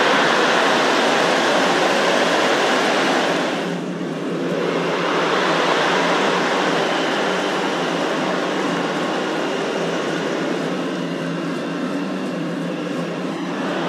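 Football stadium crowd noise, a steady wash of many voices from the stands, dipping briefly about four seconds in where the highlights cut to another moment of the match.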